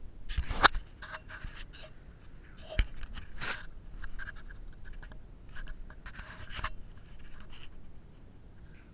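Handling noise from a handheld camera being moved and turned: rustling, small bumps and clicks, with a sharp knock just under a second in and another near three seconds.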